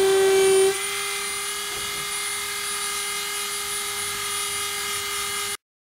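Dremel rotary tool with an engraving bit running at a steady high whine while engraving into weathered wood. A little under a second in it drops in level with no change in pitch, and it cuts off suddenly near the end.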